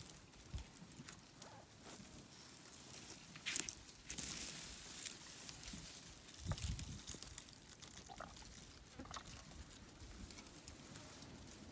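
Faint rustling and crunching, like dry vegetation being trampled or broken, with scattered crackles, a louder rustle about three and a half seconds in and a soft thump a little past halfway.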